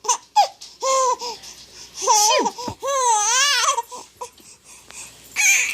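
A baby laughing in a string of short, high-pitched squeals and giggles. The longest is a wavering squeal about three seconds in.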